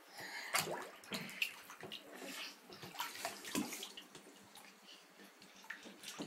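A baby splashing and slapping the water in a bathtub, in quick irregular splashes that are busiest in the first few seconds and thin out after.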